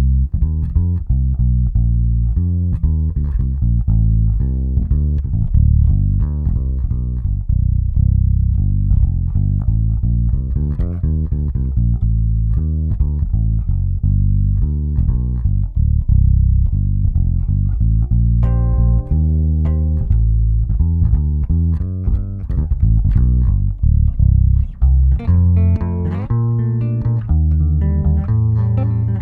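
Electric bass guitar playing a busy line of quick plucked notes, starting suddenly. Higher notes come in about two-thirds of the way through.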